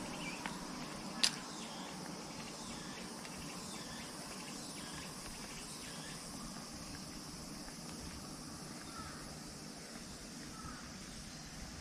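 Faint steady chirring of insects outdoors, with one sharp click about a second in.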